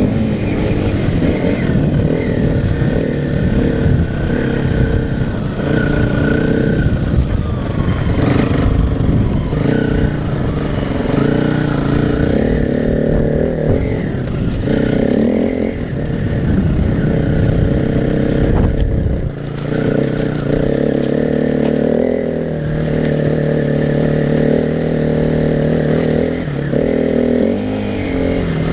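KTM 350 EXC-F dirt bike's single-cylinder four-stroke engine running under load and revving up and down as the bike is ridden, heard from the rider's helmet. A heavy low rumble sits under the engine and thins out about two-thirds of the way through.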